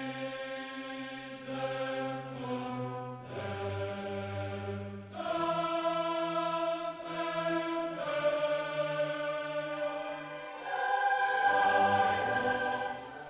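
Background music: slow, sustained chords with a choir-like sound, changing every second or two.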